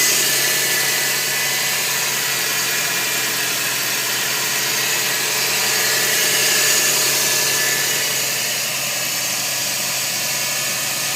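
Scion xA's 1.5-litre four-cylinder engine running steadily, with a strange noise from the engine area that the owner cannot identify.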